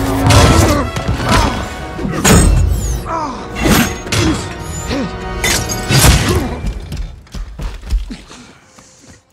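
Film fight sound effects: about half a dozen heavy punches and crunching, shattering impacts on metal armour, over dramatic score music. It all dies away over the last two seconds.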